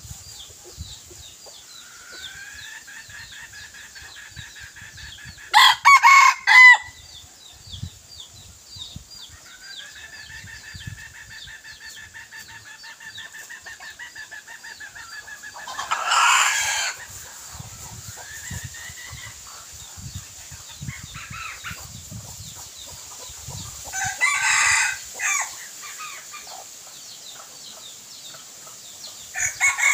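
Red junglefowl decoy roosters crowing and clucking, with long drawn-out crows and loud, short calls about six seconds in, around sixteen seconds and again around twenty-five seconds.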